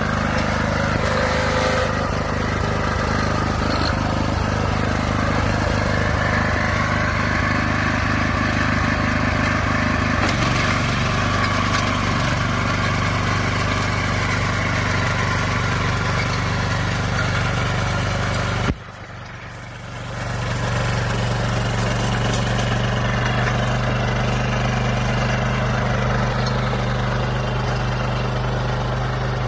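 Small engine of a walk-behind cultivator running steadily under load as its furrowing attachment cuts through the soil. About two-thirds of the way through the sound dips sharply for about a second, then the engine sound returns.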